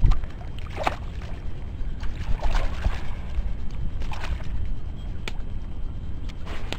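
Water sloshing and splashing at the surface with a steady wind rumble on the microphone; the loudest splash comes right at the start, as a pike is let go back into the water.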